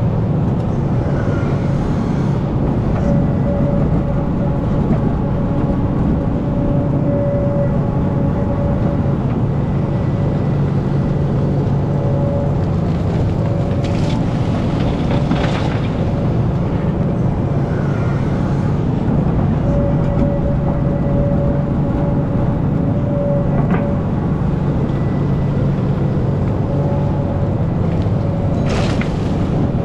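Hidromek hydraulic excavator's diesel engine running steadily under load, with a tone that comes and goes as the machine works. Loads of earth are dumped from the bucket into a steel dump-truck bed several times, each heard as a short rush of pouring soil.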